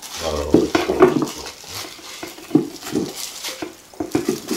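Diced apple chunks tipped and scraped off a stainless steel bowl into a plastic container: a run of irregular soft knocks and clatter as the pieces drop onto cubed radish and the bowl rattles.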